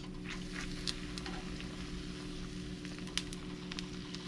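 Flour tortilla deep-frying in hot oil in a small skillet: a steady sizzle with scattered crackles and pops throughout. A faint steady low hum runs underneath.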